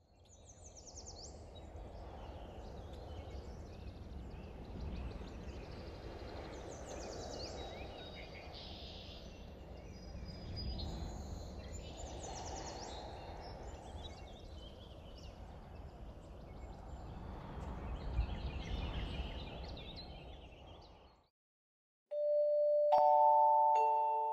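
Outdoor ambience: birds chirping over an even background noise with a low rumble that swells and eases, then fades out. About two seconds later, music with bell-like ringing notes begins.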